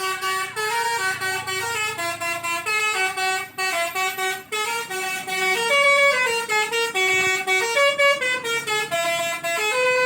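Telolet basuri multi-tone bus horn playing a melody in quick stepped notes, with two short breaks in the middle.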